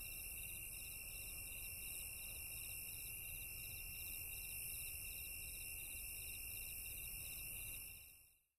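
A steady chorus of insects trilling, with rapid repeating chirps over a high continuous hiss, fading out near the end.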